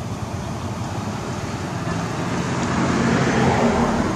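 A motor vehicle's engine hums steadily, growing louder to a peak about three and a half seconds in, then easing slightly, as if passing close by.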